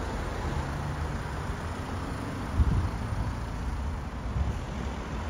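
Steady low outdoor rumble, like distant vehicles, with a brief louder swell about two and a half seconds in.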